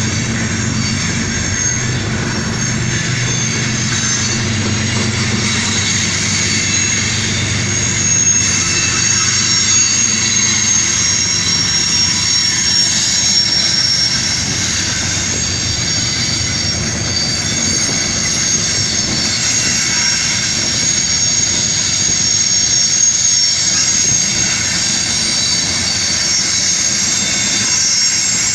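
CSX freight train's hopper cars rolling past on steel rails, their wheels squealing in several high, sustained tones. A low engine rumble from the locomotive fades over the first few seconds.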